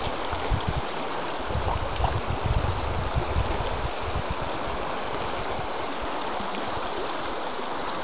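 Fast river water running, a steady rushing hiss. Low buffeting rumbles in the first few seconds, like wind on the microphone.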